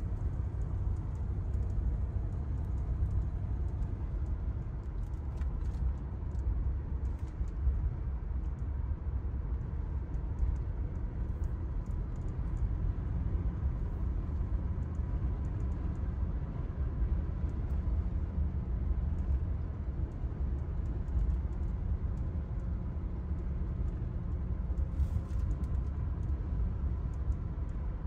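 Steady low rumble of a 1978 Cadillac Coupe DeVille cruising at an even speed, its V8 engine and tyre noise heard from inside the cabin.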